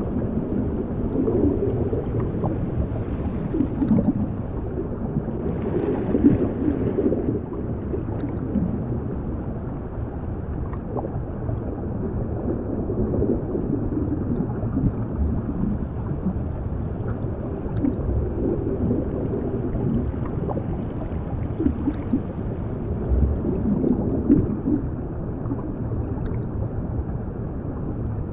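Underwater bubbling and gurgling: a muffled low rumble with bubbly swells coming every few seconds, all dull and cut off in the highs as if heard under water.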